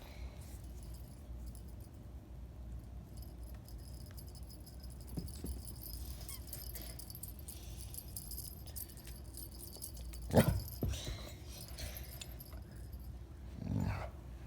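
A dog at play, with faint metallic jingling and rattling, a sharp knock about ten seconds in and a short low sound near the end.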